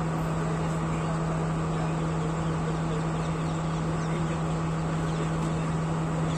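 S13 diesel multiple unit in motion, heard from on board: an even running noise of the train with a constant low engine hum, unchanging throughout.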